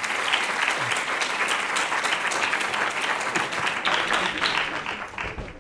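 Audience applauding, many hands clapping densely and steadily, fading out near the end.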